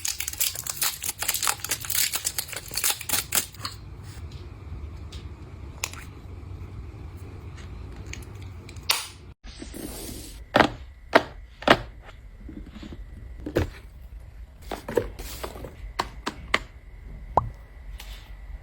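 Close-up crinkling and crackling of handled packaging for the first few seconds. After an abrupt cut, a string of separate sharp clicks and taps follows, from small objects being handled and set down.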